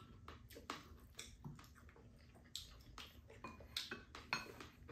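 Spoons tapping and scraping against ceramic bowls as rice is scooped up, a scatter of quiet, irregular clicks.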